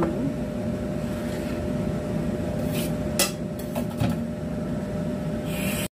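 Ceramic bowls set down and shifted on a wooden cutting board, giving a few light knocks about three seconds in, over a steady low background hum. A brief hiss comes just before the sound cuts off at the end.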